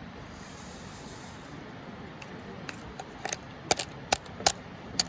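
Spice shaker being shaken over food in short strokes: a run of sharp clicks, about three a second, starting about three seconds in.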